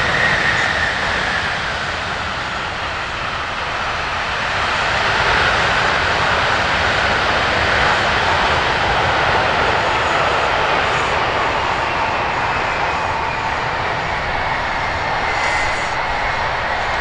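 Four turbofan engines of a Boeing C-17 Globemaster III running at power on the ground as the aircraft backs up under reverse thrust: a steady loud jet rush with a whistling whine, which slides down in pitch near the end.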